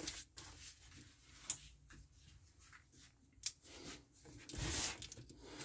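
Cardboard box being handled and turned over. There are two sharp taps, and near the end a short rustle as the box is moved.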